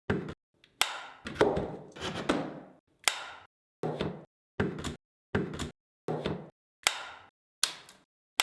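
A steady, evenly paced series of sharp knocks, a little more than one a second, each ringing briefly before cutting off.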